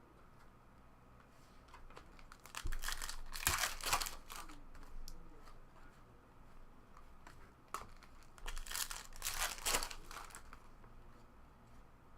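Trading-card pack wrapper crinkling and tearing as a pack is opened and the cards are handled, in two bursts: one about three seconds in and one about nine seconds in.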